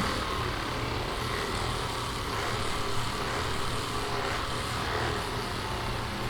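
Electric massage device running steadily, a constant motor drone.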